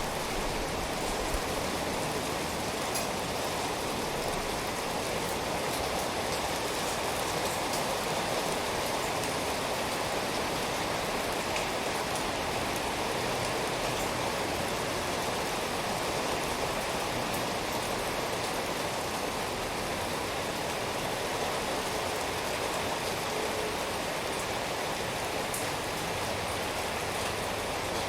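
Steady, even rain falling, a dense hiss of many drops with a few sharper drip ticks now and then.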